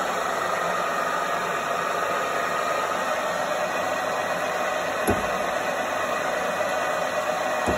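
Saut du Tarn J320 drilling and boring machine running with a steady mechanical hum, and two short clicks, one about five seconds in and one near the end.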